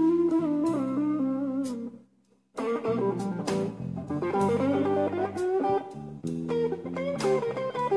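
Live slow blues: electric guitar playing a lead with bent notes over bass and drums. The band stops for about half a second roughly two seconds in, then comes back in.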